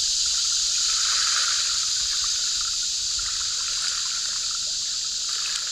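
Steady high-pitched chorus of insects, with river water lapping and trickling at the shoreline.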